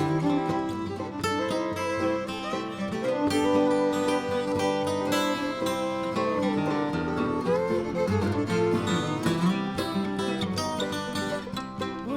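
Bluegrass band playing an instrumental break, an acoustic guitar picking the lead over the band's rhythm backing.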